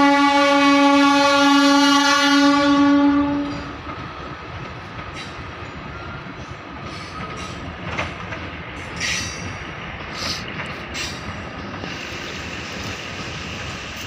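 A DEMU train's horn sounds one long steady blast of about three and a half seconds as the train departs. The train then rolls on with a steady rumble and scattered clanks of wheels over rail joints.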